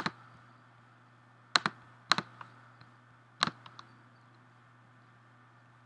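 Computer mouse clicks close to the microphone: four sharp clicks over about three and a half seconds, with a couple of fainter ticks just after the last, over a faint low steady hum.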